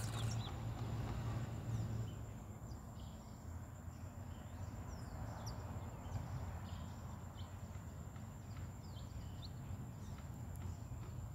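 Outdoor background: a steady low rumble on the microphone, with many short, high bird chirps scattered through it and a faint steady high-pitched tone.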